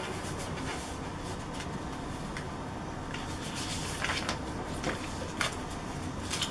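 Light handling noises: scattered faint taps and rustles of paper and cardboard as instruction sheets and kit boxes are moved about, over a steady background hiss.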